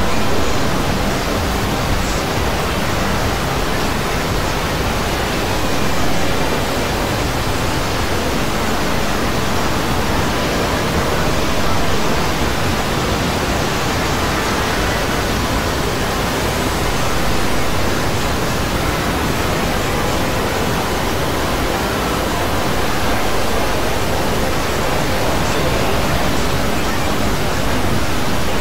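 Hundreds of video soundtracks playing at once, layered so densely that they blur into one steady, loud hiss-like wash of noise with no single sound standing out.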